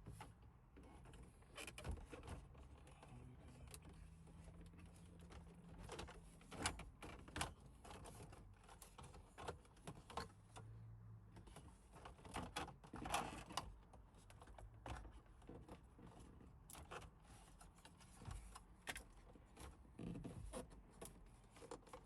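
Faint, scattered clicks and taps of plastic dashboard trim and components being handled and pushed into place during reassembly, with a louder cluster of taps about halfway through, over a faint steady low hum.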